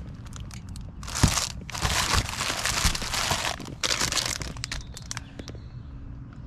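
Crinkling and rustling of something being handled, in a few loud bursts from about a second in to past the middle, with a few light knocks among them.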